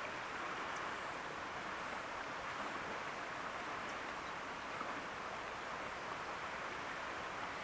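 Steady rush of flowing river water, an even hiss with no breaks or changes.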